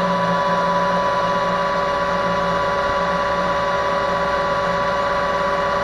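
Metal lathe running steadily with its chuck spinning at speed, giving an even motor and spindle whine.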